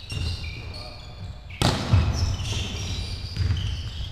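Volleyball being played in an echoing sports hall: a sharp smack of the ball being hit about one and a half seconds in, with sneakers squeaking and feet thudding on the court floor.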